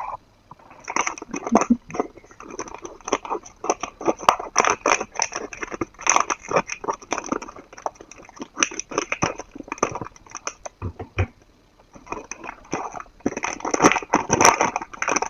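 Blind-box packaging being opened and handled: a dense run of crackling, rustling and small clicks, with a short lull about two-thirds of the way through.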